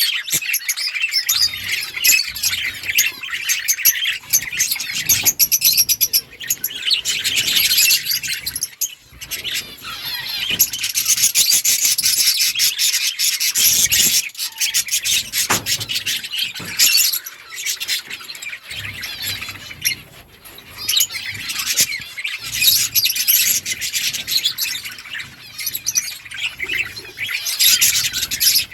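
A group of budgerigars chattering and chirping continuously, rapid overlapping warbles and chirps with a few brief lulls.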